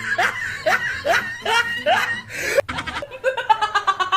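Laughter: a string of high, rising laugh bursts about every half second, cut off abruptly about two and a half seconds in, then a quick run of rapid giggling pulses.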